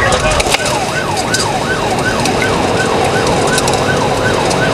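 Police car siren sounding a fast yelp, its pitch rising and falling about twice a second, heard from inside the pursuing patrol car with road noise underneath.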